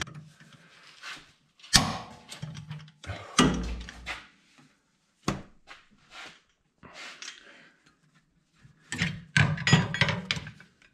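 Hand wrenches knocking and clanking against the steel hitch rails and bolts under a pickup while the bolts are torqued: a few separate knocks, then a quicker run of them near the end.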